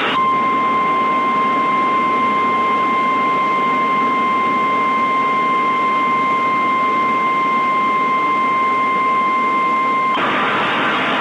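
NOAA Weather Radio 1050 Hz warning alarm tone: one steady high tone held for about ten seconds over radio hiss, cutting off about a second before the end. It signals that a warning message follows.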